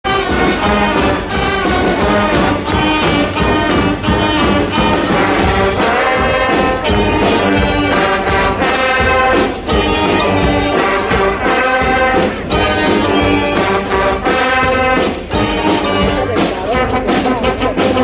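A large street brass band playing a tune: sousaphones, trombones, trumpets and saxophones over a steady drum beat.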